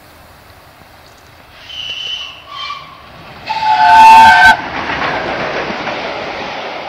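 Steam locomotive 60163 Tornado sounding its whistle as it comes through: two shorter notes, then a loud blast of several pitches together, about a second long, roughly three and a half seconds in. The blast gives way to the loud rush of the engine and coaches passing close by at speed, which fades slowly.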